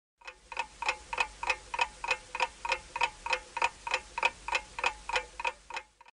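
Clock-ticking sound effect of a quiz countdown timer, an even tick about three times a second, starting and stopping abruptly.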